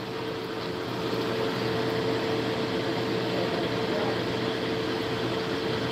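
Steady hum of a kitchen appliance's fan or motor running, with a constant mid-pitched tone.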